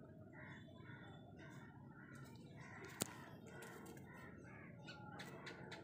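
Near silence with faint bird calls repeating in the background, and a single sharp click about three seconds in.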